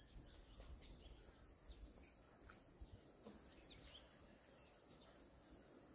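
Near silence: faint outdoor ambience with a steady high insect drone and a few faint, short bird chirps.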